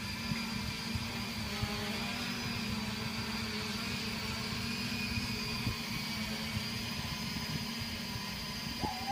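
Small quadcopter drone's propellers humming steadily in flight, over a low uneven rumble. Near the end a second, mid-pitched hum comes in and sags slightly.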